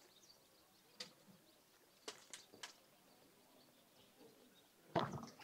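Near silence: hall room tone with a few faint clicks, then a short, louder rustle near the end.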